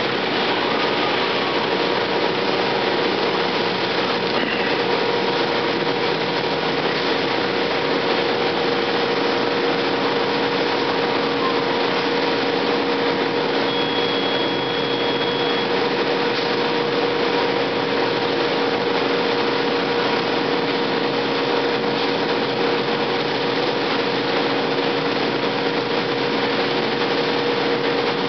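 Seybold 112 guillotine paper cutter running, its motor giving a steady hum over a rushing whir. A short high beep from its control keypad about halfway through.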